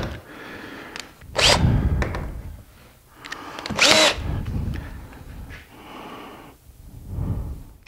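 Cordless drill boring pilot holes for hinge screws into a wooden cabinet door. It runs in several short bursts, the motor pitch rising and falling with each pull of the trigger.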